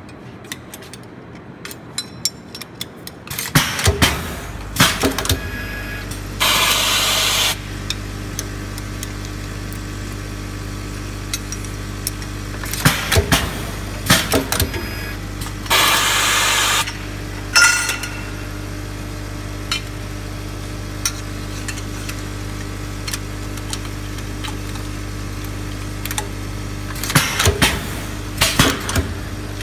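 Riveting machine running: its motor hums steadily from a few seconds in, while it goes through its setting cycle with clusters of sharp clacks and knocks and two hisses of about a second each, one near the start and one about halfway through.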